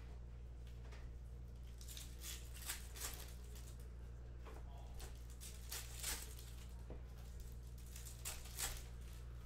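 Foil trading-card packs crinkling and tearing open by hand, and cards being slid and flipped through, in short scattered rustles over a steady low hum.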